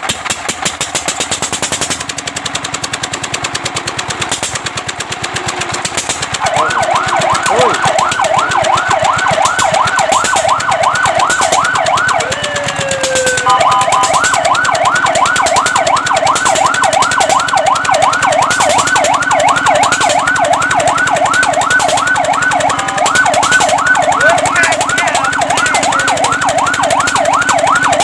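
Fire truck siren in a fast yelp, sweeping up and down about four times a second, coming on about six seconds in over an engine's steady rapid clatter. It breaks off briefly just before halfway with a falling glide, then resumes.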